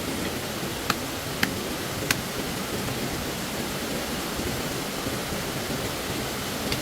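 Steady rush of stream water, with three sharp taps in the first couple of seconds and one more near the end.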